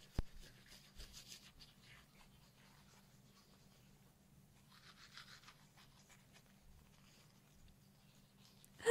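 Faint, scratchy scrubbing of toothbrush bristles, coming and going in short spells, with a sharp click right at the start.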